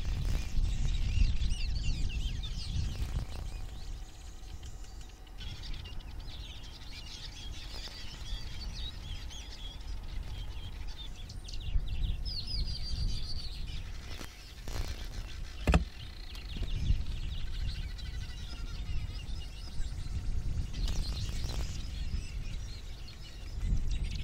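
Many small birds chirping and calling, over a steady low wind rumble on the microphone. A few sharp clicks come through, the loudest a little past the middle.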